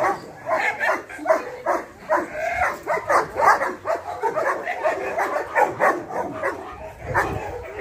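Dog barking over and over, about two or three barks a second.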